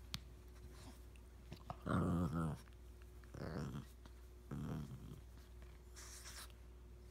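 Dogs play-growling three times during rough play, the first growl the longest and loudest.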